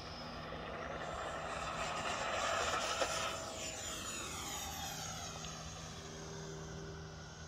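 Electric ducted fan of an E-flite F-15 Eagle 64 mm RC jet whining as the model makes a pass, loudest about three seconds in, its pitch falling as it moves away.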